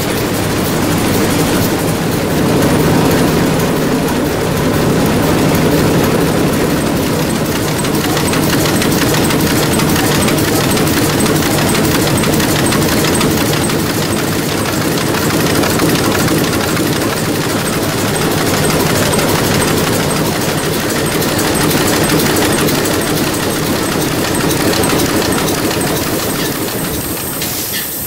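Large historic multi-cylinder diesel engine running steadily, a loud, even mechanical beat.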